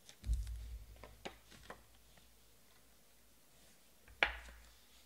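Trading cards being handled on a tabletop: a soft bump about a quarter second in, a few light ticks, and a short, sharper card rustle about four seconds in.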